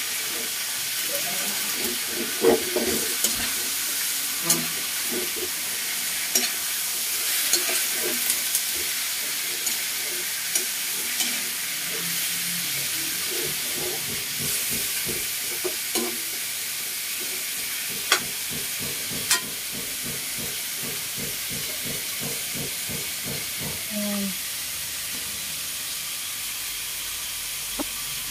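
Pork chunks sizzling in hot oil in a wok as they are browned for dinuguan: a steady frying hiss with occasional sharp clicks.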